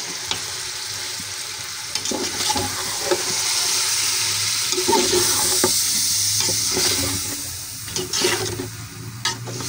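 Sliced tomatoes sizzling in hot oil with browned onions and beef, while a metal spatula stirs and scrapes against the metal pot. The sizzle swells about three seconds in and dies down near the end.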